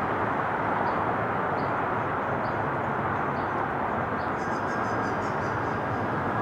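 Airbus A330 airliner on approach, its jet engines making a steady, even rushing noise.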